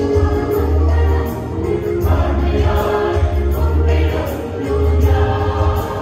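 Mixed choir singing a hymn in parts over an accompaniment with a deep bass and light, regular ticking percussion.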